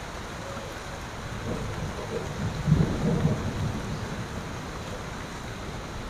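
Steady rain falling on trees and a wet street, with a low rumble swelling up about two seconds in and fading a second or so later.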